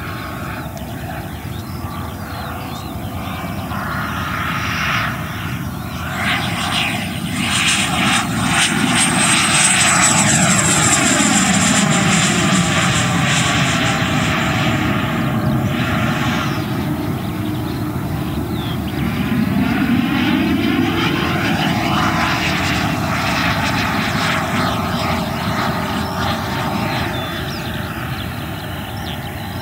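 Black Horse Viper XL's 100 mm WeMoTec Midi Evo electric ducted fan running at high power in flight: a high fan whine over rushing air that swells as the jet passes, loudest about ten seconds in with the whine falling in pitch, then swelling again about twenty seconds in.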